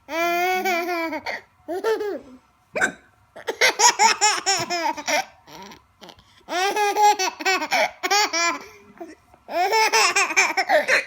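Baby laughing hard in repeated runs of high-pitched belly laughter, starting with a long squeal, set off by his mother's hiccups; one short, sharp hiccup about three seconds in.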